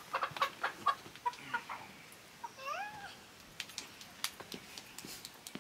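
A white broiler chicken squawking as it is lifted out of a cardboard box: a run of short clucks, then one longer rising-and-falling squawk about midway, with a few sharp knocks near the end.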